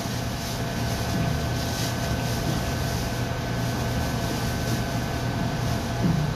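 Steady hum of a commercial kitchen exhaust hood fan, with a few held tones, over the hiss of fish frying in a deep fryer.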